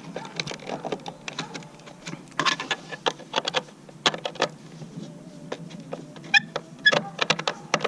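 Scattered clicks and knocks of hands and tools taking a cover off a trolling motor mount, with a couple of short metallic clinks near the end.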